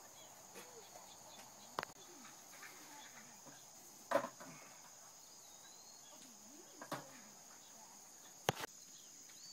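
Steady high-pitched drone of insects, broken by four sharp knocks a couple of seconds apart, the sharpest near the end.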